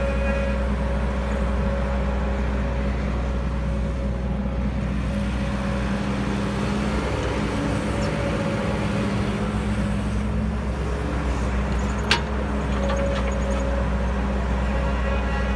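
Heavy machinery's diesel engine running steadily, its note wavering slightly in the middle. A single sharp click about twelve seconds in.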